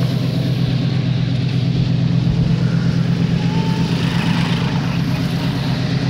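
Diesel locomotive of a loaded ore train running with a steady low engine drone as it approaches, pulsing rapidly under a haze of rail and wheel noise.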